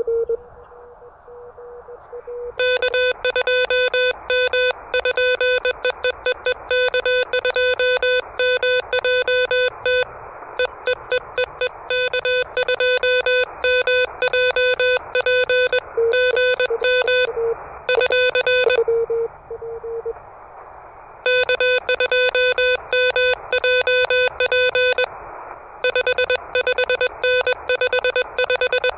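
Morse code from an Elecraft KH1 transceiver: a tone of about 500 Hz keyed quickly in dots and dashes, sent in runs with short pauses. Receiver hiss fills the gaps.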